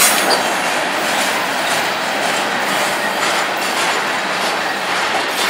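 Freight train's steel-coil flatcars rolling slowly past, a steady rumble and hiss of steel wheels on rail with occasional clicks over the rail joints.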